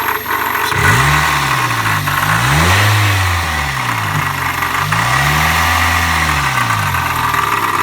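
1999 Toyota Corolla's 1.8-litre four-cylinder engine revved up and back down three times. The knock-like noise at idle, later traced to a wobbling power steering pulley, almost goes away while revving.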